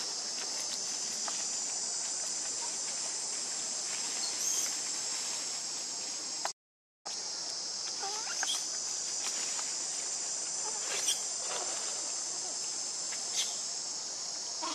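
Steady high-pitched droning of an insect chorus, with a few faint clicks and short chirps over it; it cuts out for about half a second near the middle.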